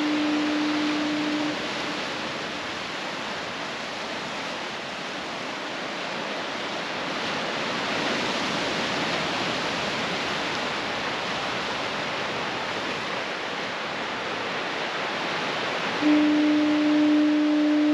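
Foghorn sounding a long, steady low note that ends about a second and a half in, and a second blast that starts near the end. Between the blasts, a continuous wash of ocean surf.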